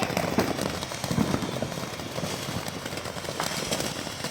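Fireworks crackling and popping in scattered, quick cracks over a steady background rumble.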